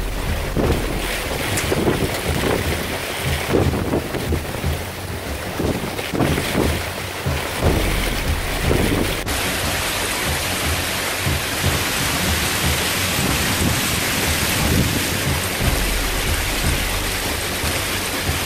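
Hailstorm: heavy rain mixed with hail pelting a paved yard in a dense, steady hiss. Wind buffets the microphone in irregular gusts during the first half.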